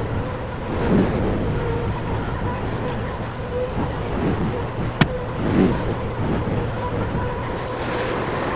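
Honda gas engine of a Derette DRT450 mini skid steer running steadily as the machine works, with a sharp click about five seconds in.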